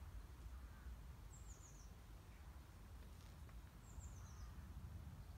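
Faint, high bird chirps in a quiet rural outdoor ambience: two quick runs of three or four short falling notes, about two and a half seconds apart, over a steady low rumble.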